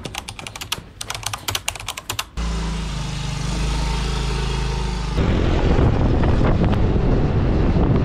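A quick run of sharp clicks, then the steady running noise of a road vehicle on the move. The noise gets louder about five seconds in.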